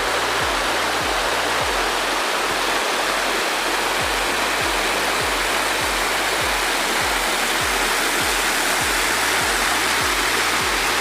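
Waterfall's steady rush of falling water, with background music carrying a steady low beat of about two kick-like strokes a second.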